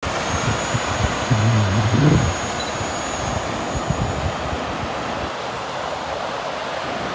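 Wind buffeting the microphone on a beach, a steady rushing noise with surf mixed in. About a second and a half in, a short low-pitched sound rises at its end, the loudest moment.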